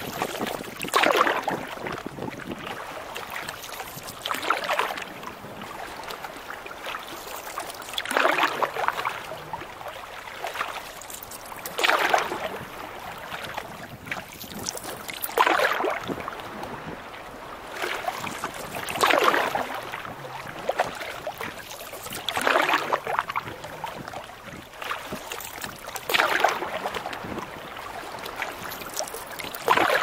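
Canoe paddle strokes splashing in choppy water, one about every three and a half seconds, over a steady hiss of wind and water.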